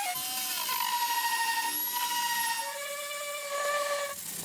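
Electric power tool with a 40-grit abrasive grinding down hardened filler on a surfboard: a motor whine whose pitch sags and recovers as it is pressed into the work, dropping to a lower note about three seconds in, then cutting off just before the end.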